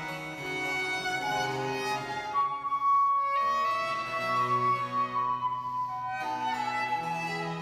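Baroque chamber ensemble playing a trio sonata: baroque violin and wooden traverso flute over harpsichord and baroque cello continuo. One long held high note sounds from about two seconds in until past the middle.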